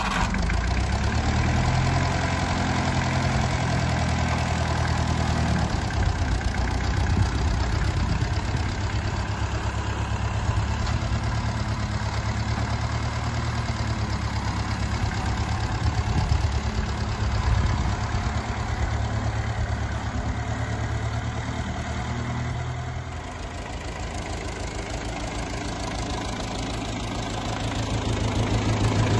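Ferguson TEF20 tractor's four-cylinder diesel engine idling steadily, growing louder near the end.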